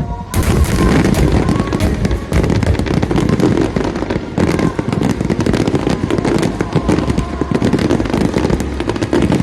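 Aerial fireworks bursting in a dense, rapid barrage, a continuous run of booms and crackles that starts abruptly just after the beginning. Music plays underneath.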